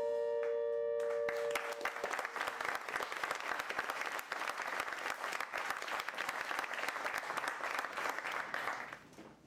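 A final held musical note ends about a second and a half in, and audience applause follows, dense and steady, fading out near the end.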